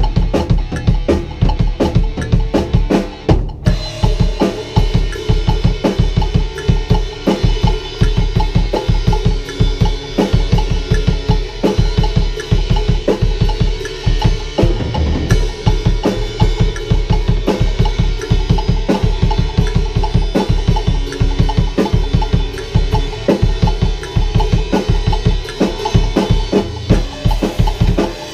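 Pearl acoustic drum kit played in a fast, driving riff: bass drum and snare hits packed close together, with cymbals coming in about three and a half seconds in and ringing on under the beat.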